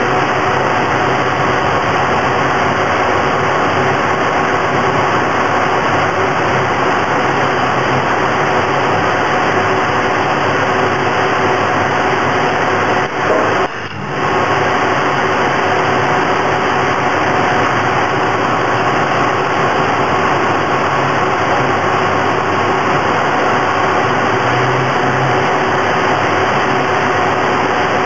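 Steady machine noise from an automatic stud-welding installation, with faint steady tones running through it. There are no distinct weld cracks, and the noise dips briefly about halfway through.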